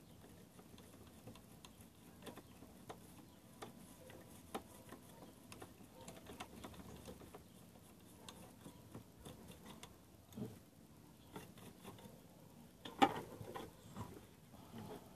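Faint, irregular clicking and tapping as the mechanism of an Elgin household sewing machine is handled and worked by hand during servicing, with a louder clatter of knocks about 13 seconds in.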